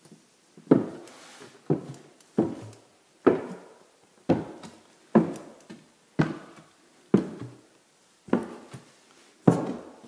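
Footsteps on a bare, unfinished subfloor in empty rooms, about one step a second, each step echoing briefly.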